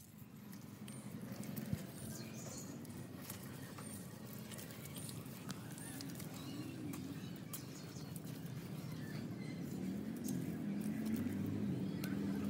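Wet mud being dug with a metal blade and broken up by hand: scattered small clicks and wet squelches.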